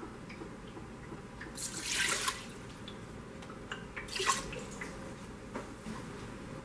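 Water poured from a plastic measuring cup onto dry buckwheat groats in a stainless steel pressure-cooker pot, in two short splashing pours about two seconds apart.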